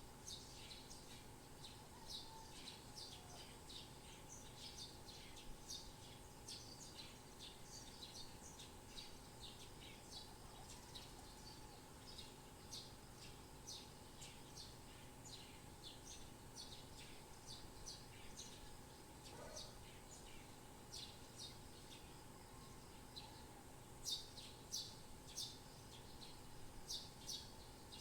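Small birds chirping: many short, high chirps, faint and overlapping, coming more often and louder in the last few seconds, over a faint steady background hum.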